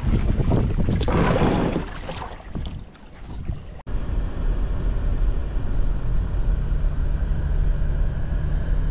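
Strong wind buffeting the microphone, with water splashing around a kayak as it is paddled. About four seconds in it cuts off suddenly to the steady low rumble of road and engine noise heard inside a moving vehicle's cabin.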